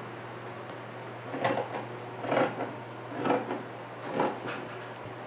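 Scissors cutting away the excess quilt batting around a sewn seam: four rasping cuts about a second apart.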